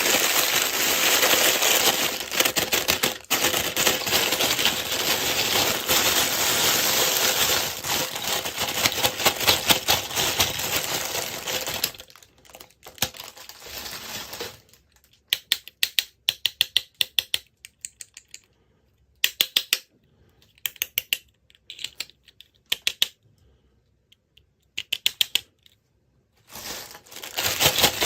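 Handling of plastic toy packaging: a dense crinkling for roughly the first half, then short runs of quick clicks and taps with gaps between them, and crinkling again near the end.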